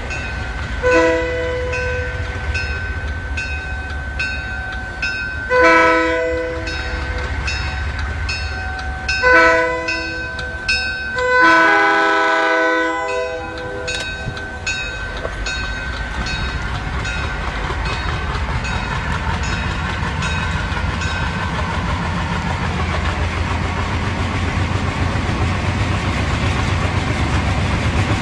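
Diesel freight locomotive sounding its air horn four times, the last blast the longest, over a bell dinging steadily about twice a second. After the horn, the locomotive's diesel engine grows steadily louder as the train approaches under power, working hard enough to throw black exhaust smoke.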